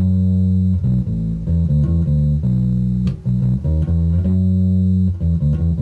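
Electric bass guitar playing a single-note line in the key of B, a mix of quick and held notes: the song's keyboard intro figure moved to bass, which walks up from the root B through D sharp, E and F sharp and comes back down through E and open D to B.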